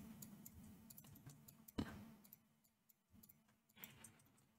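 Faint clicks of a computer mouse and keyboard at low level, with one louder, sharper click a little under two seconds in.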